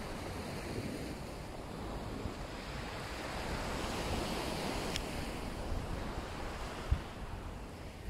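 Small sea waves breaking and washing up a pebbly shore, with wind rumbling on the microphone. A single short knock sounds near the end.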